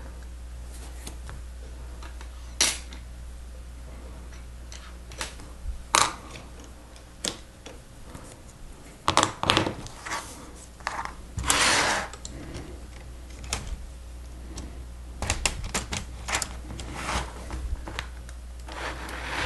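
Plastic Lego Technic pieces clicking and snapping as they are handled and pressed together, in irregular sharp clicks, with a longer scraping sound about twelve seconds in.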